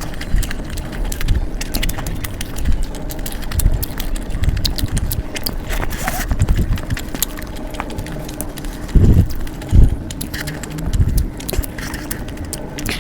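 Close-miked eating: irregular chewing with sharp mouth clicks, and two louder low thuds about nine and ten seconds in.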